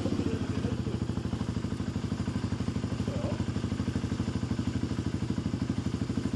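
BMW enduro motorcycle engine running at low revs with a fast, even throb while the bike is pushed through snow.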